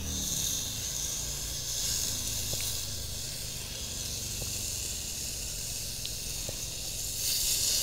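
Portable cartridge gas grill hissing steadily, its burner flame under the grill plate and the food on it sizzling; the burner still has enough power on the old gas cartridge. A few faint ticks as a fork turns the food.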